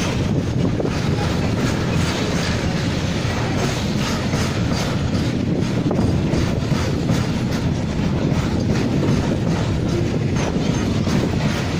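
A goods train of petroleum tank wagons rolling past at close range: a steady rumble with wheels clacking over the rail joints.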